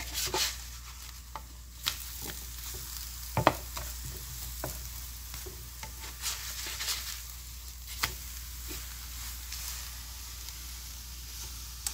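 Corn tortillas sizzling steadily on a hot electric multi-cooker grill plate, with scattered clicks and knocks of a spatula against the plate as they are turned; the loudest knock comes about three and a half seconds in.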